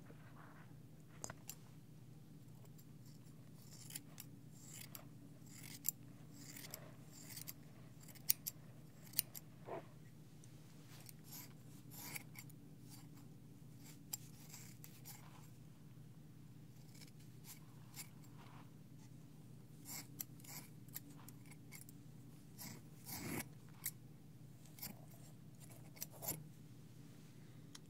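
Scissors snipping hair close to a binaural microphone: short, irregular snips scattered throughout, some much louder than others, over a faint steady low hum.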